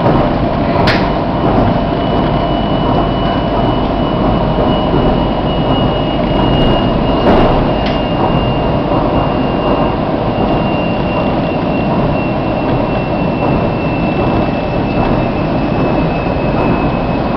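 Running noise inside a CSR electric multiple-unit train on the move: a steady rumble of wheels on rail with a faint high whine. A couple of sharp knocks come through, the loudest about seven seconds in.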